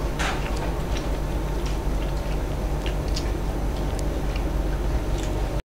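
Scattered light clicks and taps of people eating by hand from plates, over a steady low hum. The sound cuts off suddenly near the end.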